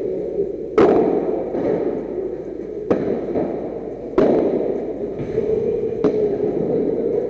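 Padel rally: four sharp ball strikes on rackets and court, about one to two seconds apart, each echoing in the enclosed hall, over a steady hum.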